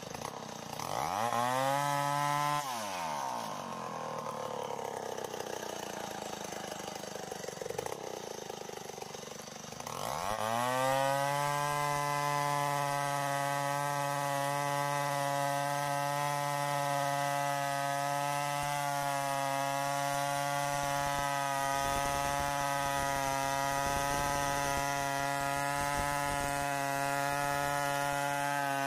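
Stihl 070 two-stroke chainsaw ripping lengthwise through a hard acacia mangium log. The engine revs up and drops back about a second in, runs rougher for several seconds, then from about ten seconds in holds a steady full-throttle pitch as it cuts.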